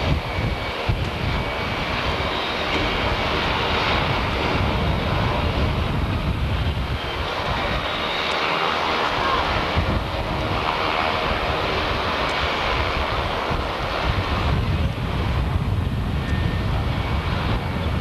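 Turboprop engines of a formation of Embraer Tucano aerobatic aircraft running steadily on the runway.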